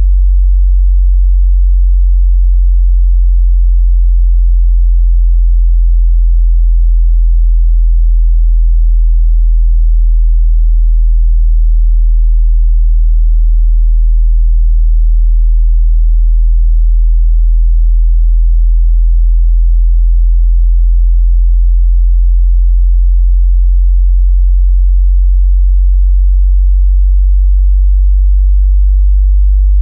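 A loud synthetic sub-bass sine tone, very low in pitch, holding steady throughout.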